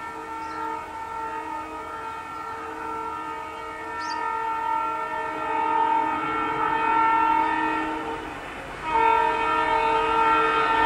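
Indian Railways diesel locomotive sounding its multi-tone air horn in a long, steady blast as it approaches with a passenger train. The horn breaks off briefly about nine seconds in, then sounds again, louder.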